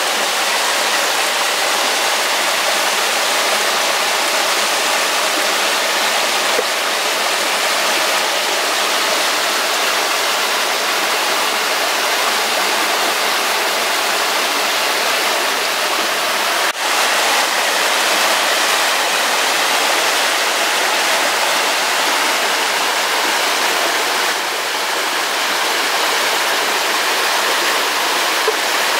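Steady rush of running water, like a stream or small waterfall, unchanging throughout.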